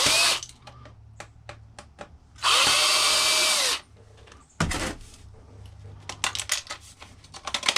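Power drill-driver running in bursts while taking apart a karaoke machine: a short burst at the start, one run of over a second that spins up and winds down, and another brief burst. Then a string of small clicks and rattles from handled screws and plastic parts.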